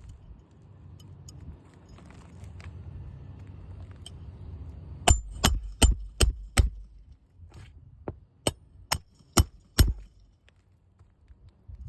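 Hammer driving roofing nails into an asphalt shingle: a run of five quick, sharp strikes about five seconds in, then four more a couple of seconds later.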